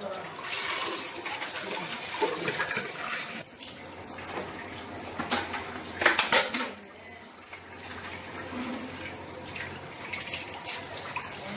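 Tap water running into a sink while the plastic parts of an RO water purifier's pre-filter are rinsed and handled, with plastic clattering and knocks; the loudest knocks come about six seconds in.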